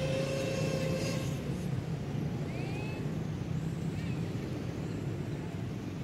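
A steady low motor hum runs throughout. Over it, a drawn-out high-pitched cry sounds in the first second and a half, and a few short rising chirps follow.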